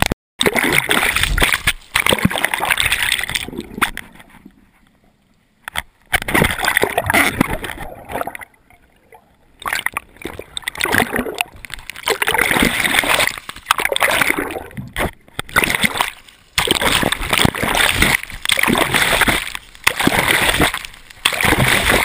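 Ocean water splashing and sloshing in irregular bursts against a wrist-mounted GoPro as the surfer paddles through the waves. It drops away twice, about four seconds in and again about eight seconds in.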